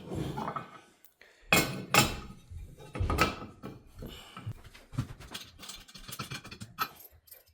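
Metal parts of a PipiShell TV wall mount being handled and fitted together: clanking knocks, a few louder ones in the first half, then lighter clicks and rattles.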